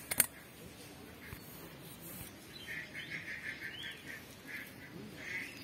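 A bird calling in a quick run of short, high chirps, about four or five a second, starting about two and a half seconds in, with another burst near the end. Two sharp knocks come right at the start and are the loudest sounds.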